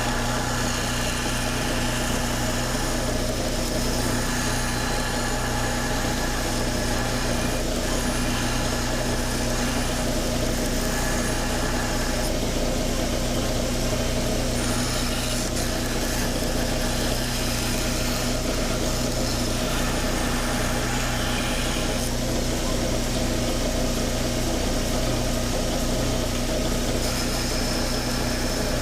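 Belt grinder running on a 3-inch small contact wheel, its motor a steady hum, while the belt grinds the finger grooves of a D2 steel knife blank, the higher grinding hiss shifting as the steel is pressed on and eased off.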